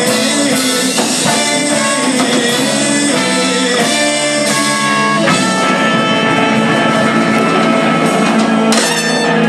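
Live rock band playing an instrumental passage: guitars over a drum kit, with sustained notes and chords.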